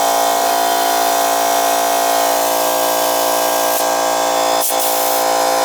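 Small electric air compressor running steadily with an even motor drone, pumping air into a well water pressure tank. The tank's diaphragm is leaking, so the air it takes in keeps escaping.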